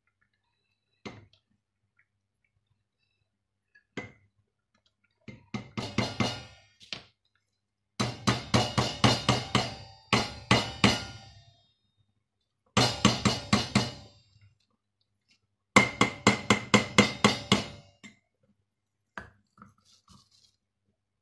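A spatula stirring thick soap paste hard in a stainless steel pot, knocking rapidly against the pot's side in four bursts of a second or more each, at about six knocks a second, with a few single knocks before them.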